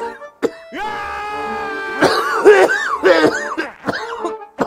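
A man coughing and gagging several times on the sharp, eye-stinging fumes of fermented skate (hongeo) being stir-fried, with music under it.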